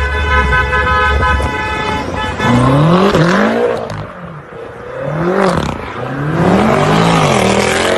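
A car horn sounds in one steady tone for about two seconds. Then car engines rev up and down several times as the cars slide and drift.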